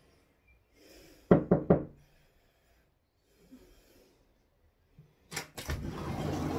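Knuckles rapping on a glass conservatory door, a quick run of about four sharp knocks. A longer, quieter steady noise follows near the end.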